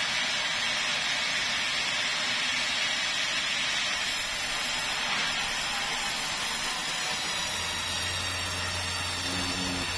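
Sawmill band saw running and ripping lengthwise through a keruing plank, a steady hissing cut. About seven seconds in, a lower steady hum joins it.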